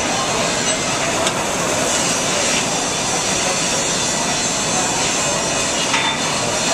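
Electric arc welding: a steady hissing crackle from the arc as a bead is run.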